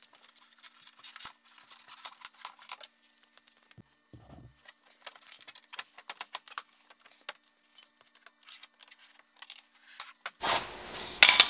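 Scattered light clicks, taps and small rattles of a plastic aero side skirt being handled and pressed into place along the car's rocker panel, with a louder clattering rustle starting near the end.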